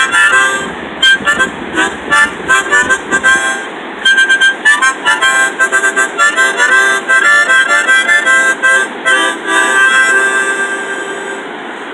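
Harmonica played in quick runs of short, choppy notes, then a few longer held notes that fade away near the end.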